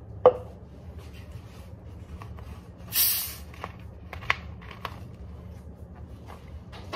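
Plastic bottle of Sprite being twisted open: a short hiss of escaping carbonation about three seconds in, with light clicks of the cap after it. A sharp knock just after the start is the loudest sound.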